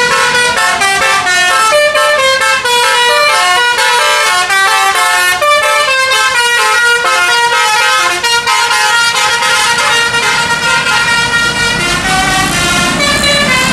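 Tour bus's musical multi-tone horn playing a quick melody of stepping notes. Near the end the horn fades and the low sound of engines rises.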